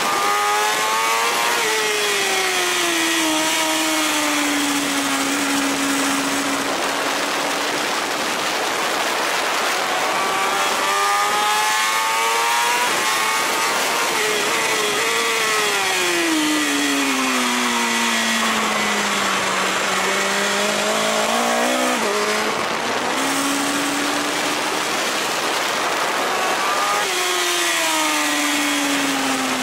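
BMW S1000RR's inline-four engine at track speed, heard onboard under heavy wind rush. Its pitch climbs under throttle and falls away over several seconds as the bike slows, several times over, with a few quick rises and falls about two-thirds of the way through.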